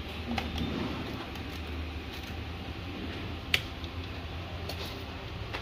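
Steady low room hum with a few light clicks of a charging cable and connectors being handled and plugged into a USB charger, and one sharp click about three and a half seconds in.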